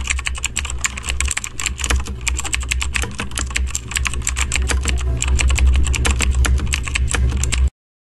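Fast typing on a computer keyboard: a dense, irregular run of key clicks over a low steady hum, cutting off suddenly near the end.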